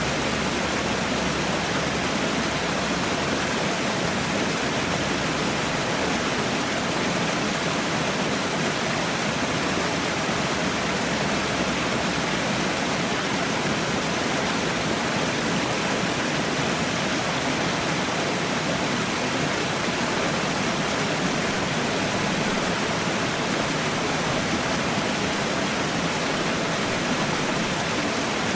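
Falling water: a steady, even rush that does not change.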